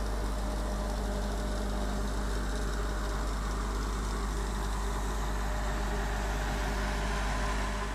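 Steady hiss and low hum from a standing 0-6-0 pannier tank steam locomotive, with steam escaping from beneath it.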